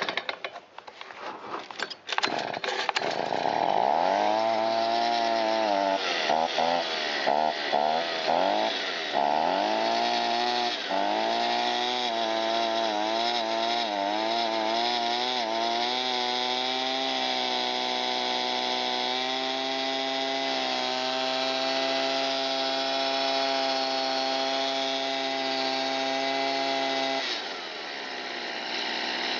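Stihl BG55 leaf blower's small two-stroke engine being pull-started: it sputters briefly, catches about three seconds in, and surges up and down unevenly before settling into a steady run. Near the end its pitch drops sharply. The carburetor has check valves that the owner finds worn out.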